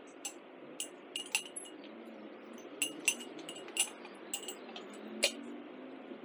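Glass wine bottle clinking and tapping against its wooden hanging-lamp holder as it is lifted and shifted by hand: about ten light, ringing clinks at irregular intervals over faint steady background noise.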